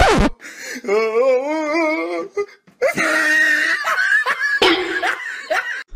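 A short falling glide, then laughing: first a quavering laugh whose pitch wobbles up and down, then a second, longer stretch of laughter.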